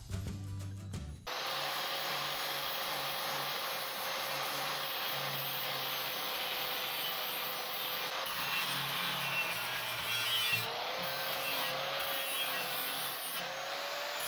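Briefly music, then an angle grinder cutting through rusty steel angle iron: a steady motor whine over a dense grinding hiss, the whine wavering in pitch a few times in the second half as the disc bites.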